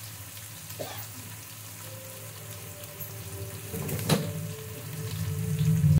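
Sliced onions frying in hot oil in a large aluminium pot, a steady sizzle as they brown. A low hum runs underneath and grows louder near the end, and a single sharp click comes about four seconds in.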